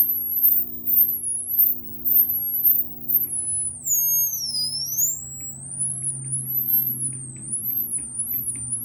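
High-pitched whine from a tube amplifier driving a microwave oven transformer with a signal-generator tone, swept up and down by hand in wavering glides while hunting for a resonant frequency around 10 to 15 kHz. A steady low mains hum runs underneath, and faint quick ticks come in near the end.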